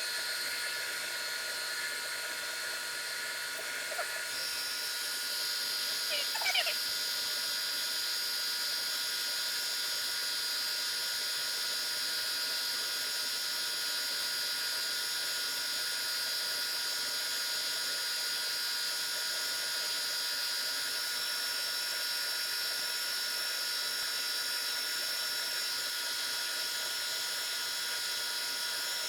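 Metal lathe running steadily with a whine made of several steady tones while turning a steel bar down from 1 inch to 5/8 inch. A little over four seconds in, a higher whine joins, and a brief squeak comes around six seconds.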